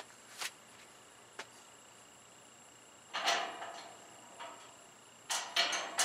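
Gazebo corner brace being worked into the aluminum frame by hand: faint clicks early, a short scraping knock about three seconds in, then a cluster of louder knocks and scrapes near the end as it is pushed into place.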